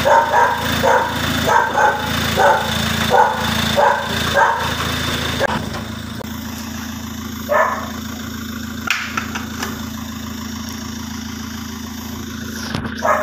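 A dog barking repeatedly, about eight barks over the first five seconds, then falling quiet. A steady low hum of a car engine idling runs underneath.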